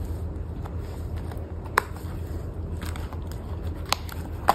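A clear plastic ring binder being handled: three sharp clicks and light plastic crackling as the binder is opened and its plastic pouch pages are turned, over a low steady hum.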